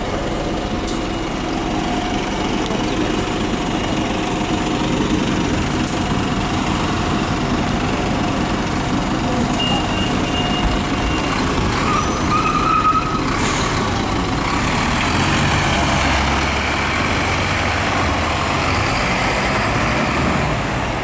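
A Solaris Urbino 12 city bus's DAF 9.2-litre diesel idles at a stop. About 13 seconds in there is a short hiss of air, and from about 15 seconds in a heavier engine note builds as a bus pulls away.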